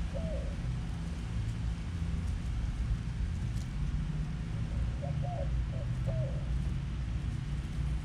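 White-winged dove cooing: a phrase of several short low hoots ending in a longer arched note about five seconds in, with the last note of another phrase right at the start. Under it runs a steady low rumble.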